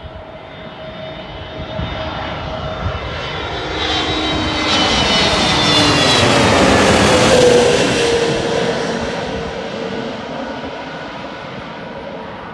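Twin-engine Airbus A320-family jet airliner on final approach with its gear down, passing low overhead. The engine noise builds to a peak about seven seconds in, then fades, its whine dropping in pitch as the plane goes by.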